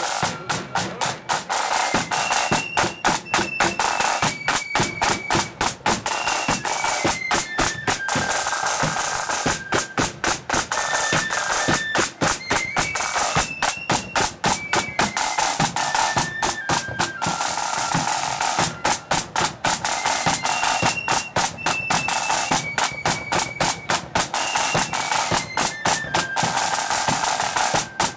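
Marching flute band playing a tune. Flutes carry a high melody that steps from note to note over rapid snare drum rolls and strokes, with a bass drum underneath.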